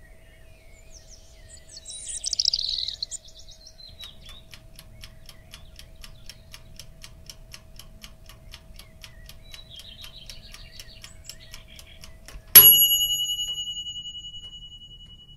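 A brief high chirp, then steady ticking like a clock at about four ticks a second. It ends in one bright bell ding that rings on and fades away.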